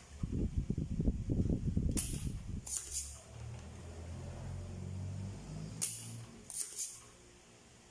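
Handling and bench-work noise on an electronics repair bench: irregular knocking and rustling for the first few seconds, then a low steady hum. Two pairs of sharp snapping clicks stand out, one pair about two seconds in and another near six seconds.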